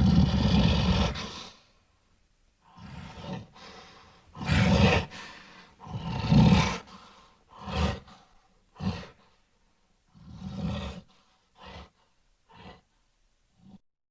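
Gorilla roars and grunts: a string of about nine rough calls with short silences between, the longest and loudest near the start, the later ones shorter and fainter.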